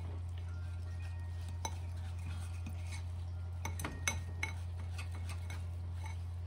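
Metal spoon stirring and scraping a crumbly crisp topping in a ceramic bowl, with a scattering of light clinks against the bowl, several of them close together about four seconds in. A steady low hum runs underneath.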